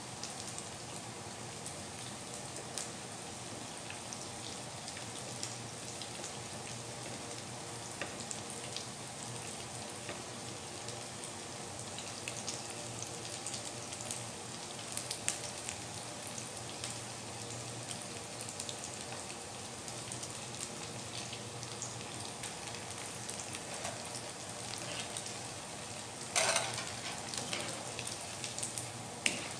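Flour-coated potato pieces frying in hot oil in a non-stick pan: a steady sizzle full of small crackles and pops. About 26 seconds in, a wire-mesh strainer stirs through the oil, giving a louder brief scrape and splash.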